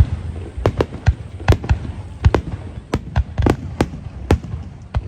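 Fireworks display: about a dozen sharp bangs in quick, irregular succession over a low, continuous rumble of aerial shells.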